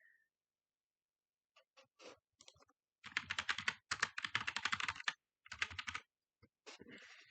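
Typing on a computer keyboard: a few scattered keystrokes, then a fast run of keys lasting about two seconds, then a few more.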